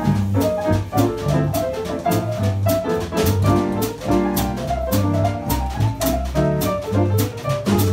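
Small jazz combo playing live: upright double bass walking steadily, about two notes a second, under drums with frequent cymbal strokes, and a melody line above.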